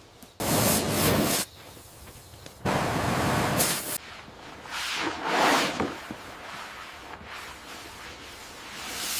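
Three bursts of rough, hissing scraping noise, each about a second long, with quieter gaps between them.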